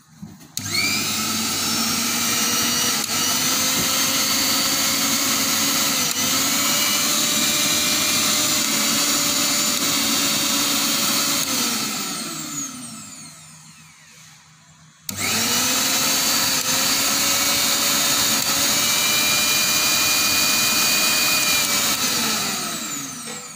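Orient Kitchen Kraft 750-watt mixer grinder motor, switched on with no jar fitted, running with a steady high whine. It winds down with a falling pitch as it coasts to a stop, then is switched on again about halfway through and runs again before winding down near the end.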